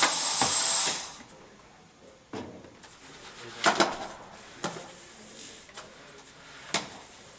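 FTC competition robot's flywheel ring shooter running with a steady high whine and launching a foam ring at the goal, cutting off about a second in. Then a handful of sharp knocks and clacks from the robot and rings on the field.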